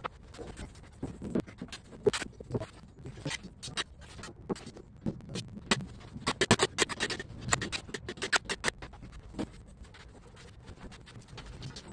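Irregular sharp knocks and clicks of wooden wall frames and a siding sheet being handled and set down on a concrete floor, thickest in a quick flurry about six to seven seconds in.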